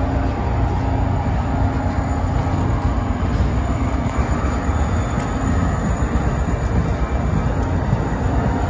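Shore Line East commuter train's stainless-steel coaches rolling past close by: a steady rumble and rush of wheels on rail, heaviest in the low end.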